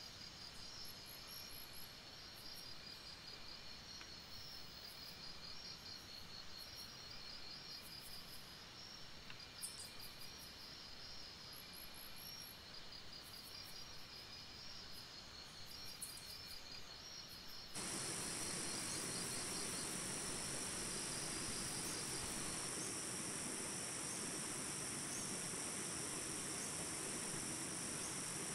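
Insects chirping in even, pulsed trains over a soft steady hiss. About two thirds of the way in, a louder steady rush of rain cuts in abruptly and covers them.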